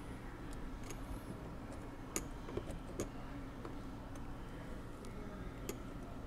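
Scattered light metallic clicks and ticks, about six in all at uneven intervals, as the shaft and parts of a 1917 Monroe Model F calculator's keyboard mechanism are worked loose by hand. A faint steady hum runs underneath.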